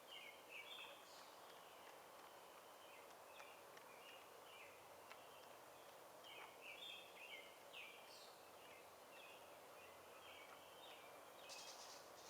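Faint outdoor ambience: small birds chirping over and over, short quick calls, above a steady background hiss.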